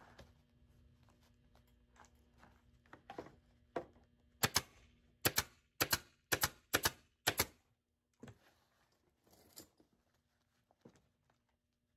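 Pneumatic upholstery staple gun firing staples through webbing into a wooden chair-back frame: a quick run of about eight sharp shots over some three seconds. Lighter clicks and rustling of the webbing come before and after.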